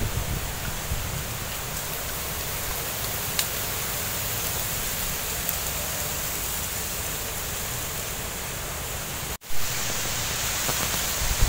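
Oil sizzling steadily around an egg frying sunny-side up in a small wok. The sound drops out for a moment about nine seconds in.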